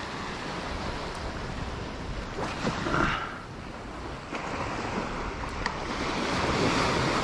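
Small waves washing up and draining back on a sandy shore, with wind across the microphone. The wash swells louder near the end.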